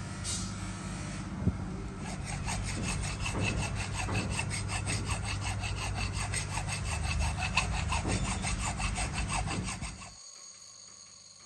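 Rapid, rhythmic rasping strokes of a workshop tool working material, about five a second, over a steady low hum. The strokes and the hum stop abruptly about ten seconds in.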